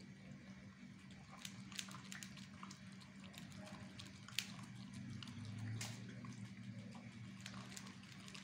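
A dog eating wet rice from a metal bowl: faint, irregular wet smacks and lapping clicks from its mouth, over a steady low hum.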